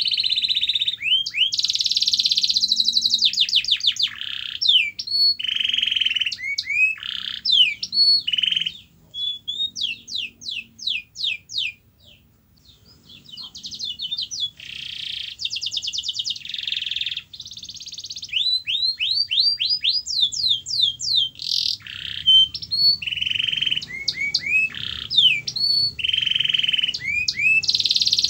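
Domestic canary singing a long, continuous song of fast trills, rapid runs of repeated rising notes and buzzy rolls, broken by a short pause about twelve seconds in.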